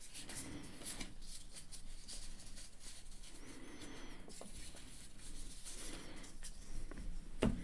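Cardboard trading cards sliding and flicking against each other as a stack is thumbed through one card at a time: faint, irregular small scratchy ticks.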